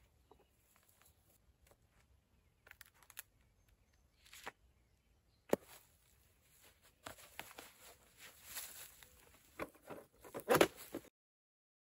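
Quiet handling noises: scattered rustles and small clicks, a sharp click about halfway through, and a cluster of louder knocks and rustles near the end. The sound then cuts to dead silence about a second before the end.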